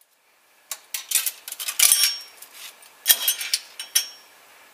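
Vending machine rattling: sharp metallic clinks and clatter with a couple of dull knocks, in two bursts about a second apart.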